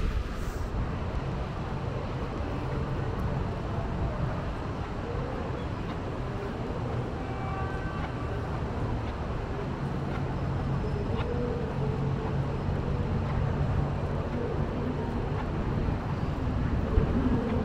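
Steady rain falling on pavement over a low, continuous rumble of distant city traffic.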